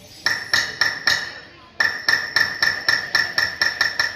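Metal struck over and over, each strike ringing with a clear pitch: four strikes, a short pause, then a quicker steady run of about five strikes a second.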